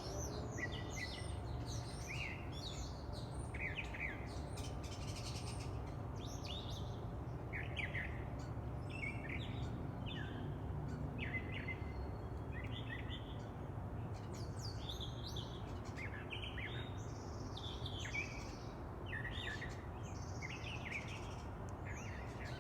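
Wild birds chirping and calling in many short, varied notes and brief trills, several birds overlapping, over a steady low background rumble.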